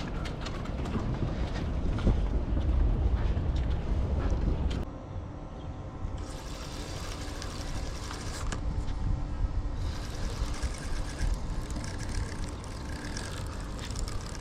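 Motorboat engines running at a marina, a low rumble that drops suddenly to a quieter steady hum about five seconds in.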